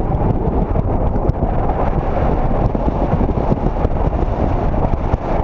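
Wind buffeting the microphone of a camera mounted on the outside of a moving car, with the 2004 Chevrolet Monte Carlo's running and road noise underneath: a steady, loud, low rumble.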